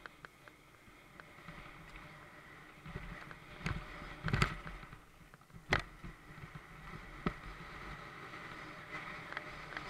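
Mountain bike riding fast down a dry dirt trail: steady tyre and ride rumble, with sharp clanks and rattles from the bike over bumps, the loudest about four and a half and six seconds in.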